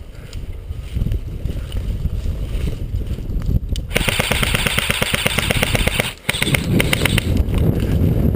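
Electric airsoft rifle firing on full auto: a rapid, even rattle of shots starting about four seconds in, a brief break after about two seconds, then a shorter second burst.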